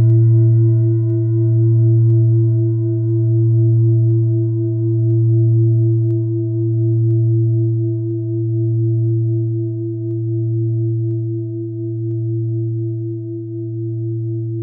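A deep metallic ring from a single strike of a bell, sustaining and slowly fading. Its tone wavers in a slow, even pulse.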